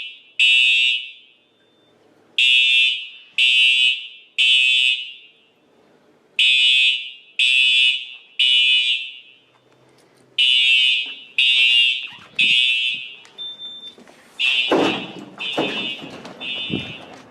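Fire alarm horns sounding the temporal-three evacuation pattern: loud high-pitched beeps in groups of three, about one a second, with a pause of about a second and a half between groups. A few low thumps come in under the last group near the end.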